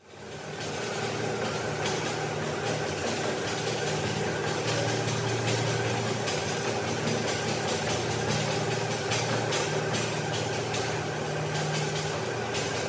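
Motorized treadmill running: a steady motor and belt hum with the regular thud of running footsteps on the deck.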